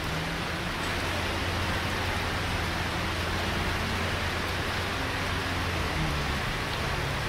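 Steady hiss of water on a flooded road, over the low, even hum of vehicle engines idling and creeping through the floodwater.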